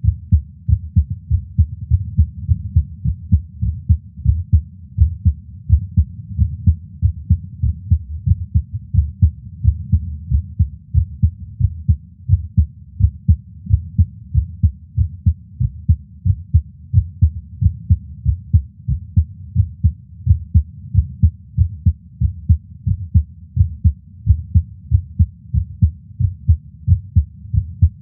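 A man's resting heartbeat heard through a stethoscope: a steady, regular rhythm of low thumps.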